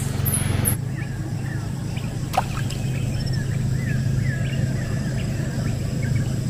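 Riverside ambience: a steady low hum under repeated short chirping calls from the bank, with one sharp click about two and a half seconds in.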